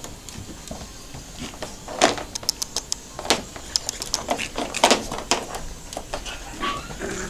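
Maltese puppies scampering and playing on a hard plastic pen floor: a quick, irregular run of sharp clicks and taps from their claws and paws, thickest in the middle, with a brief squeak near the end.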